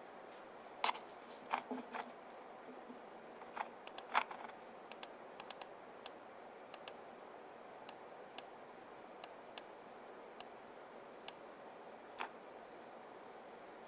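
Light, sharp clicks at irregular intervals, about twenty in all and bunched most closely a few seconds in, over a faint steady room hiss.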